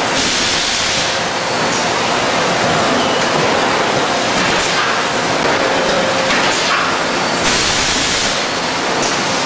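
Thermoforming line running: a steady, loud machinery noise with bursts of hissing, one in the first second and another near the end.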